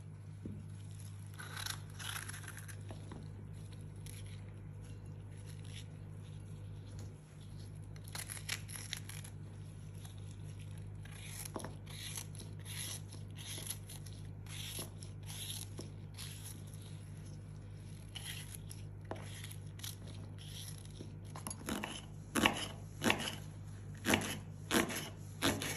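Kitchen knife cutting green peppers on a bamboo cutting board: quiet slicing and scraping, then near the end a run of sharp knife strikes on the board as long green peppers are chopped. A steady low hum runs underneath.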